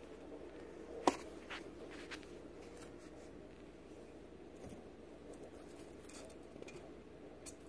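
Scattered light clicks and scratchy rustles of a long-haired guinea pig moving and nibbling in hay bedding, with one sharper click about a second in, over a faint steady hum.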